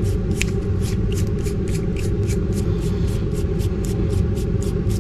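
A gas furnace's flame sensor rod being scrubbed clean of light buildup with a small abrasive flame-sensor cleaner: rhythmic scraping strokes, about four a second, over a steady low rumble.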